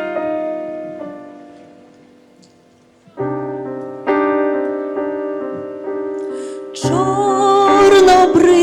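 Live piano playing slow chords: a held chord fades away, then new chords start about three seconds in. Near the end a female voice enters, singing a sustained line with vibrato over the piano.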